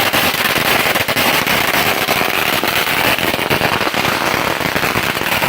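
Long-running ground firework crackling continuously: a dense, rapid stream of small sharp pops with no let-up.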